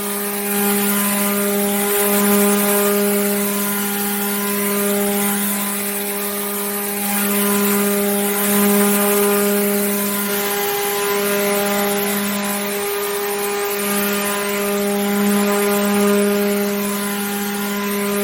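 Water pump motor running steadily: an even, unbroken hum with a hiss over it, swelling and easing slightly in loudness.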